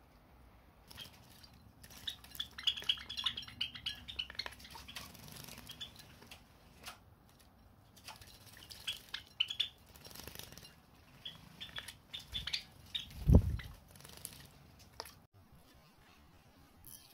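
Java sparrows chirping in quick clusters, with light splashing as they bathe and scuffle in shallow water dishes, and one dull thump about thirteen seconds in.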